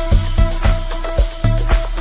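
Amapiano dance music: a steady beat of drum hits, about four a second, over deep bass notes.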